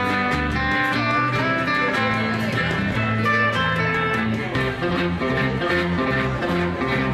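Live surf-rock instrumental: electric guitar playing the melody over bass guitar and a steady drum beat.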